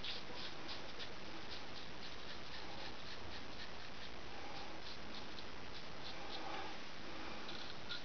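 Gold Dollar 66 straight razor scraping stubble through shaving lather in short repeated strokes, a rasp a few times each second, on the second pass.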